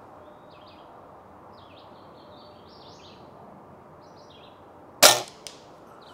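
Daisy Powerline 1101S spring-piston air rifle firing once about five seconds in: a single sharp crack with a short ring-off, then a faint click. Birds chirp in the background before the shot.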